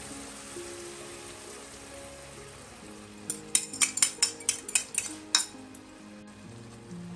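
Eggplant frying in a wok, sizzling steadily as beaten egg is poured over it. From about three seconds in, a fork clinks quickly against the rim of the bowl about ten times, scraping out the last of the egg.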